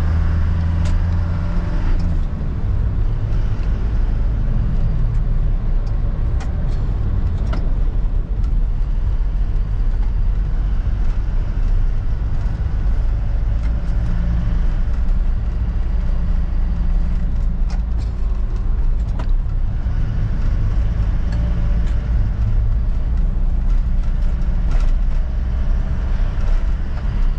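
Cab interior of an Isuzu NLR light truck under way: its diesel engine runs steadily under the road and tyre noise, with a few faint clicks here and there.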